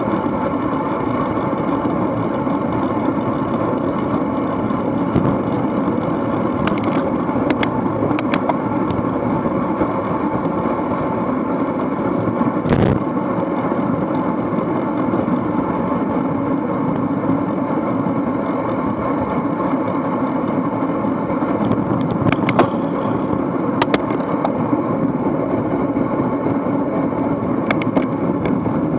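Steady rush of wind over an action camera's microphone and tyre noise from racing bicycles riding in a pack at about 20–30 mph. A few sharp clicks come through, and there is one louder knock about 13 seconds in.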